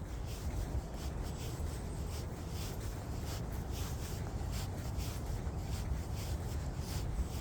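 Footsteps crunching along a trail at a walking pace, about two steps a second, with wind rumbling on the microphone.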